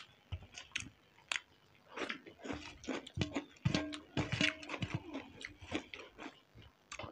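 Two people chewing Maggi masala instant noodles close to the microphone: wet mouth sounds and small clicks, sparse at first and busier from about two seconds in.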